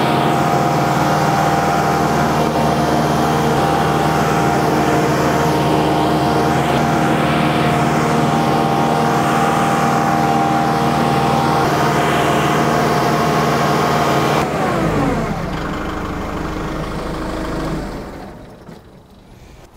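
Kubota L6060 tractor's four-cylinder diesel engine running steadily at high throttle. About fifteen seconds in the revs drop to a lower idle, and near the end the engine is shut off and dies away.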